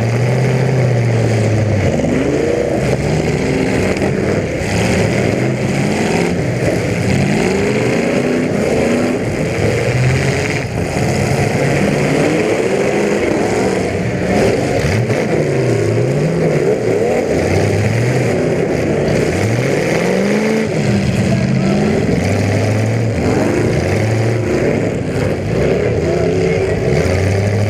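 Demolition derby cars' engines revving, their pitch rising and falling over and over, several engines overlapping.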